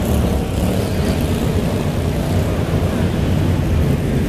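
Engines of several slingshot race cars running together as the pack laps the track.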